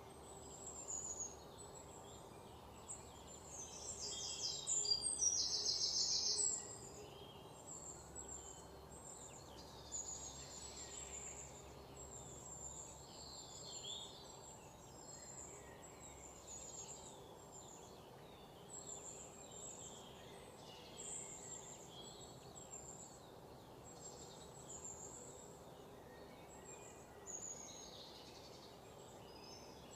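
Many small birds chirping and calling in high, short notes over a steady background hiss, with a louder rapid trill from about four to six seconds in.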